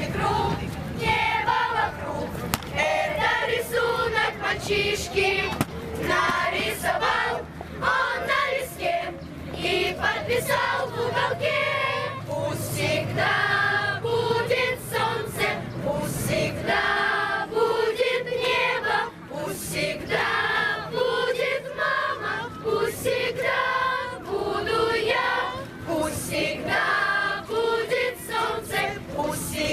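A choir singing a song over a steady instrumental backing.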